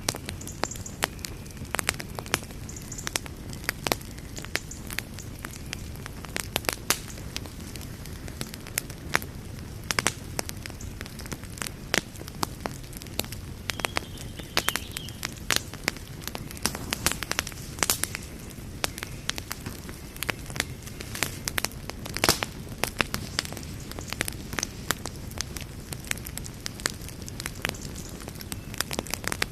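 Campfire burning with a steady low hiss under frequent irregular crackles and pops; a louder pop about 22 seconds in.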